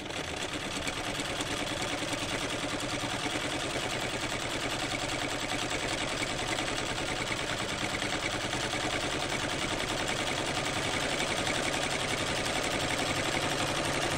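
Chaika 144A sewing machine running steadily at speed while sewing a decorative stitch, with a fast, even rhythm of needle strokes from the needle bar and stitch mechanism.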